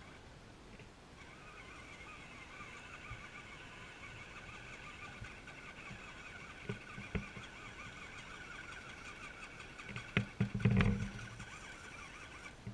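RC4WD Gelande II Defender scale RC crawler's electric motor and geartrain whining steadily under throttle as it crawls up a steep dirt bank. A few sharp knocks come through the middle, and near the end a louder cluster of low thumps.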